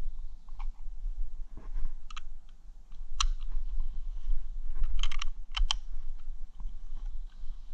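A few sharp clicks and light knocks as a shotgun is handled and leaned against a tree trunk, with a quick cluster of clicks about five seconds in, over a steady low rumble.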